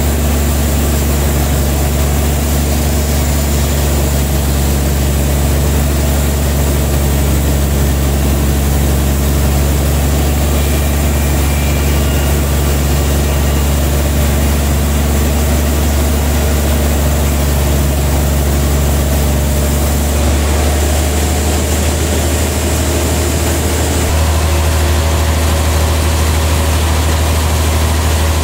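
Large band sawmill's machinery running with a steady, loud low drone. The drone shifts slightly about 20 seconds in and again around 24 seconds.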